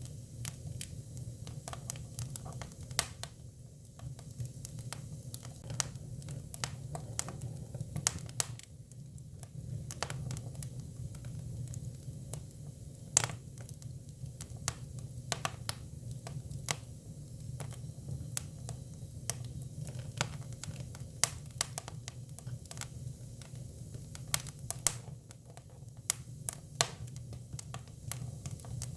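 Hinoki cypress firewood burning, with a steady low rumble of the fire and frequent sharp crackles and pops at irregular intervals.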